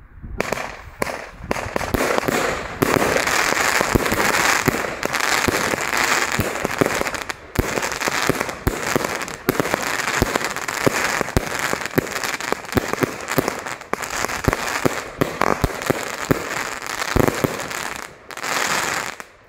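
Superior Fireworks 'Attractive' 36-shot, 25 mm consumer fireworks cake firing: a rapid run of shots and bursts over dense crackling, stopping near the end.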